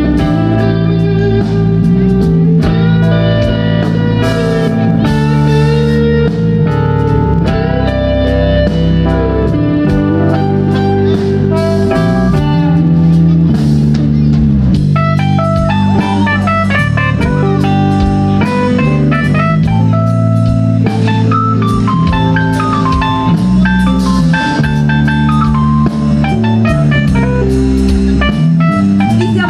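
Live blues band playing an instrumental passage: electric guitars with bending lead notes over drum kit, bass and keyboard, at a steady beat.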